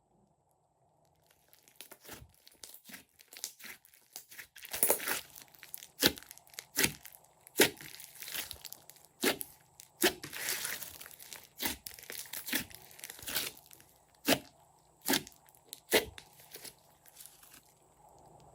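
Glossy slime worked by hand, giving irregular sticky clicks and pops as trapped air bursts, with a few sharp snaps and stretches of crackling squelch. It starts after about a second of quiet and thins out near the end.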